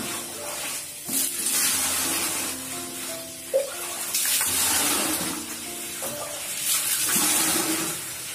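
Water running and splashing in several surges, over background music.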